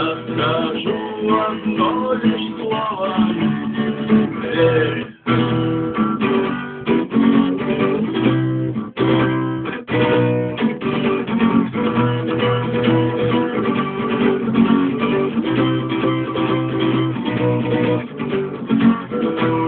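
Acoustic guitar strummed in chords with no singing, the instrumental ending of a song. The playing breaks off briefly twice, about five and ten seconds in.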